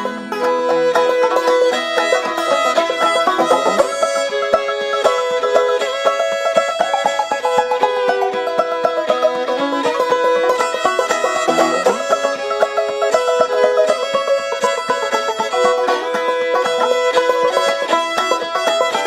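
Instrumental break of a folk-country song: banjo picking with fiddle.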